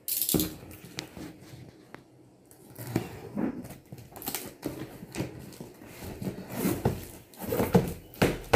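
Packing tape being ripped off a cardboard carton and the flaps pulled open, in a series of irregular tearing and scraping noises, the sharpest one right at the start, with cardboard and plastic wrapping rustling.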